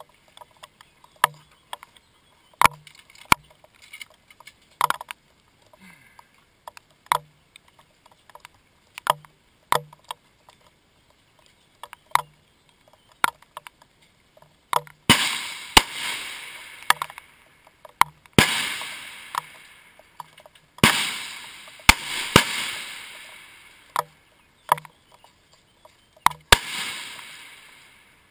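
Rifle shots on a long-range firing line, about five in the second half, each a sharp crack followed by a rolling echo that dies away over a second or two. Before them, a scattering of short sharp clicks and knocks.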